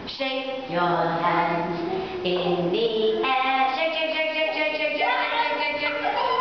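A woman singing a children's action song, with young children's voices joining in, in long, steady notes.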